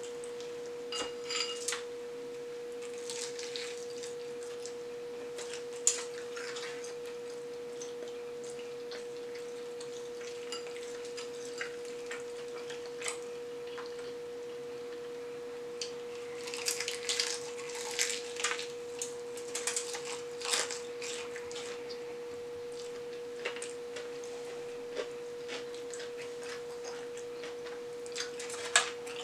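A person chewing and crunching fried chicken, with scattered clicks and bursts of crunching that are busiest about halfway through. A steady mid-pitched tone sits underneath.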